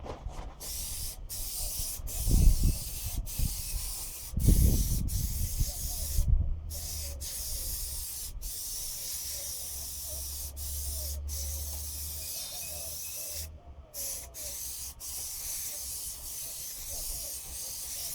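Aerosol can of 3M headliner and fabric adhesive spraying in long hisses, cut off briefly several times as the nozzle is released. A few loud low thumps come around two and five seconds in.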